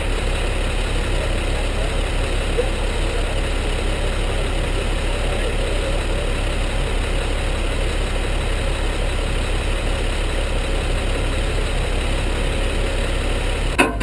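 A tow truck's engine idling steadily. A single sharp click comes just before the end.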